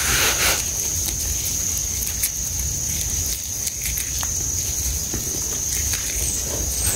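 A steady high-pitched insect buzz, with a burst of scraping at the start and scattered small clicks and scratches of a stick and hands digging in dry, dusty soil.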